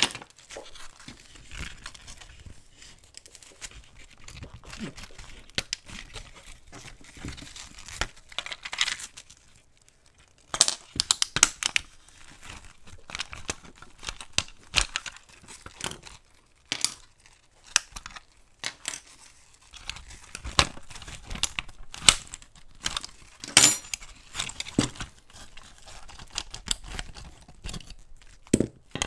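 Close-up handling noise from taking apart a rusty diecast model car: gloved hands rustling against the model, with many short clicks and scrapes of small metal and plastic parts being pried and pulled.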